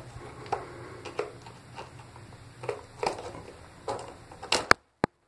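Scattered small clicks and knocks of hands handling parts and the phone, about six of them at uneven intervals, the last near the end the loudest; then the sound cuts off suddenly.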